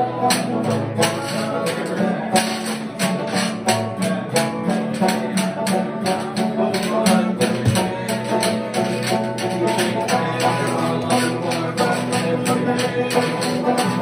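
String band music: acoustic guitar and banjo played together, with a washboard-and-cymbal percussion rig keeping a steady, even beat.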